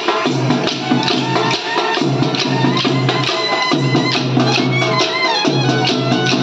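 Live South Indian folk band accompanying a stick dance: drums beating a steady fast rhythm, a wind instrument playing a wavering melody over a low drone, and the dancers' wooden sticks clicking.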